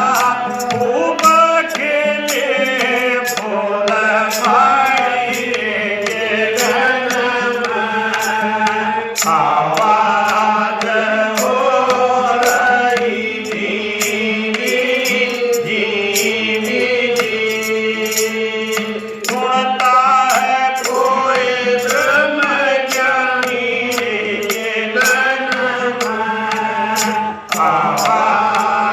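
Hindi devotional bhajan: a voice singing a melody over a steady held drone, with a sharp percussion click keeping an even beat of about two a second.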